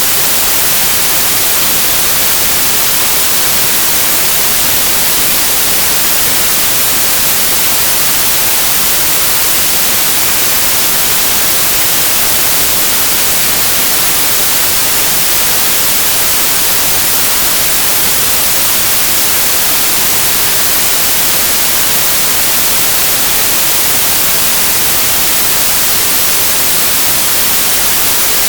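Steady, unchanging white-noise hiss, brightest in the treble, with no separate events.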